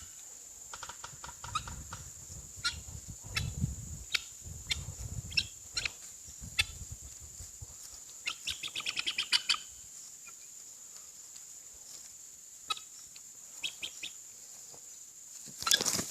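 Farmyard fowl calling in short, sharp clucks and cries, with a quick run of about eight calls a second about halfway through and single calls scattered around it. A steady high-pitched whine runs underneath.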